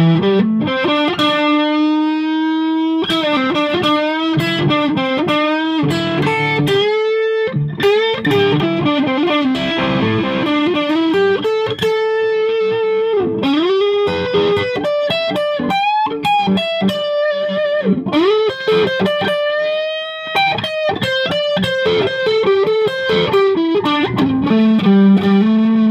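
Electric guitar with single-coil pickups, a Stratocaster-style Super Strat, played through a Snarling Dogs Tweed E. Dog overdrive pedal. It plays a distorted lead line of held notes, string bends and vibrato, with quick picked phrases between them.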